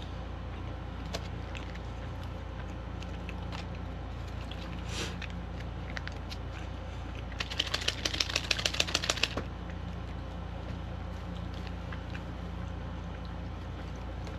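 A small plastic sauce packet shaken hard, a quick run of sharp flicking clicks at about seven a second for roughly two seconds. Faint chewing and a low steady room hum run under it.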